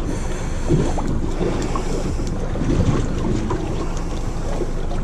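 Wind buffeting the microphone over a steady rush of sea and boat noise, with a few faint ticks.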